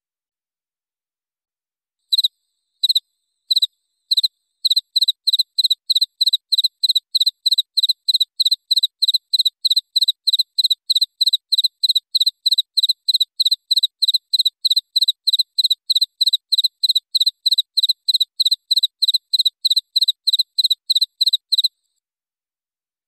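Cricket chirping, starting about two seconds in with a few slow chirps and settling into a steady, even run of about three high-pitched chirps a second. It stops shortly before the end.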